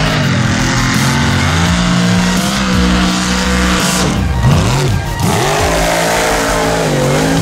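Mega truck engine revving hard through a mud pit. The pitch swings up and down, drops sharply about four seconds in and climbs again, over a steady rush of spraying mud and water.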